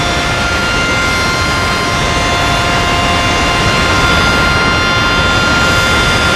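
Ryko car wash air dryer blowers running: a steady, loud rush of air with several steady whining tones over it.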